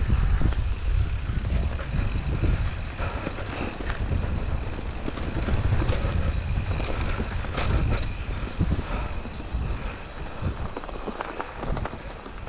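Mountain bike rolling down a dirt forest trail: a low wind rumble on the camera's microphone, with tyre noise and the bike clattering and knocking over bumps and roots.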